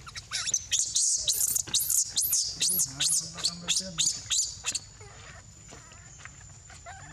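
Baby macaque's high, shrill distress squeals: a rapid run of rising-and-falling cries, about three or four a second, that stops abruptly about five seconds in. A faint steady high whine continues after.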